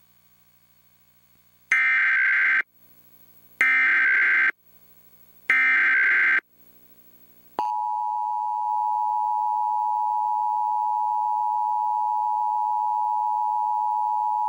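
Emergency Alert System signal for a Child Abduction Emergency: three short bursts of SAME header data tones about a second apart, starting about two seconds in. About seven and a half seconds in, the steady two-tone attention signal begins and holds.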